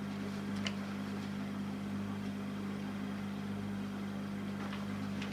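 Steady low electrical hum with a faint hiss underneath, and a faint tick about two-thirds of a second in.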